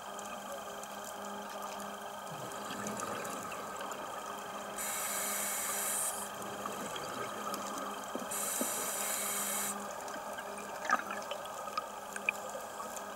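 Underwater sound of scuba diving: steady hiss with a faint hum, broken twice by a diver's regulator exhaling a burst of bubbles, about five seconds in and again about eight and a half seconds in. A few faint clicks come near the end.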